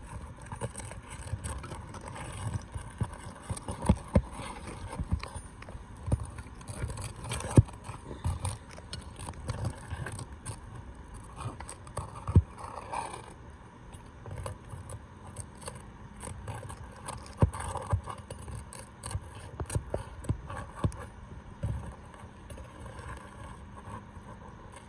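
A roof snake and hammer working asphalt shingles to free a wind-damaged shingle: scraping and rustling broken by sharp knocks at irregular intervals, the loudest about four, seven and twelve seconds in.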